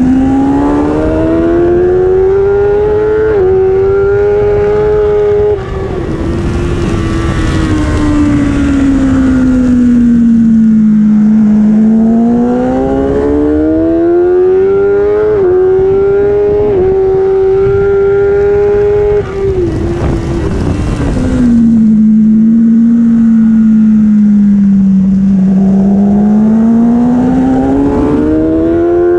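Kawasaki superbike's inline-four engine at race pace, heard from an onboard camera. The revs climb hard and drop back in quick steps at upshifts, fall away when the throttle is shut about five seconds in and again near twenty seconds, then build again out of the corners. There is rushing wind noise at speed.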